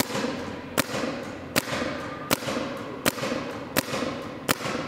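Twister LV1 paintball marker firing single shots in a steady rhythm, seven sharp pops about three-quarters of a second apart, each followed by a short echo.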